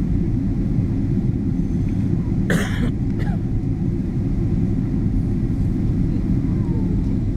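Steady low roar of an airliner cabin in flight on the descent to landing, with one brief sharp noise about two and a half seconds in.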